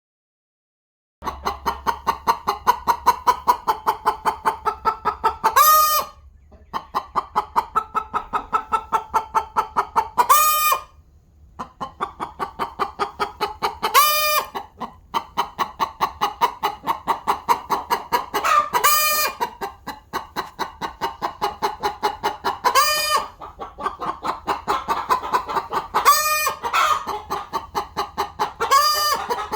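Chickens clucking rapidly and continuously, starting about a second in, with a louder, sharper squawk breaking in roughly every four seconds.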